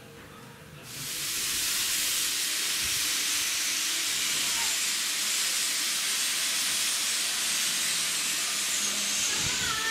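Loud, steady hiss of steam escaping from the standing steam locomotive C22, a 1902 Beyer Peacock 2-6-0 tender engine. It starts suddenly about a second in and holds even, with no chuffing or rhythm.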